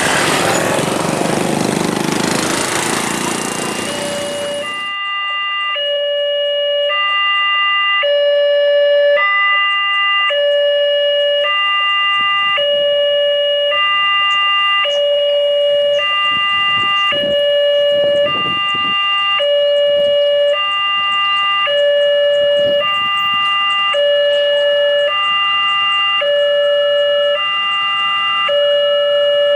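Railway level-crossing warning siren, a recording played through a megaphone in place of the crossing's horn. It alternates between a low and a higher tone, each held about a second. A loud rushing noise before it cuts off suddenly about four and a half seconds in.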